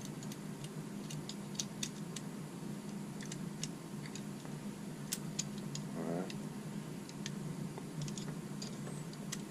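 Scattered light clicks and taps of a coax compression tool and BNC connector being handled and adjusted, over a steady low hum.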